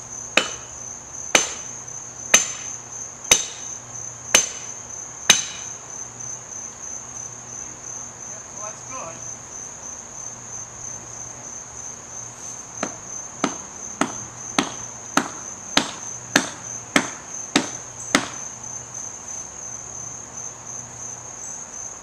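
Axe chopping into a fallen tree limb: six heavy blows about a second apart, a pause of several seconds, then a run of about ten quicker blows. A steady high trill of crickets runs underneath.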